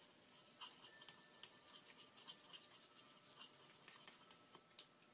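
Faint, scratchy brushing with scattered light ticks: a paintbrush working acrylic paint and water together in a mixing dish.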